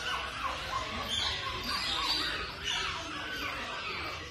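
Young Pekingese puppies squeaking and whining at play, many short high-pitched cries overlapping and rising and falling in pitch.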